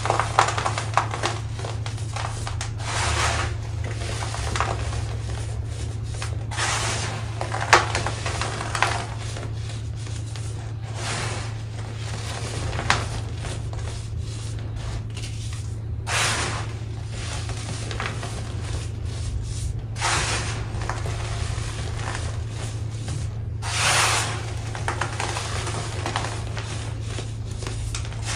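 Pressed chunks of baking soda crunching and crumbling as they are squeezed in bare hands, a soft crunch every few seconds with powder pouring down. There are a few sharp clicks of chunks knocking together near the start, and a steady low hum underneath.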